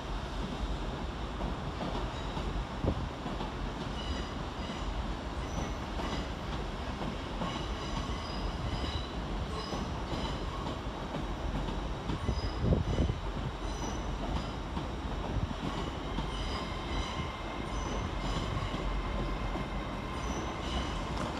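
LNER Class 800 train rolling slowly out of the platform, its wheels squealing again and again in short high chirps on the curved track, with a steady rumble and one louder thump about halfway through.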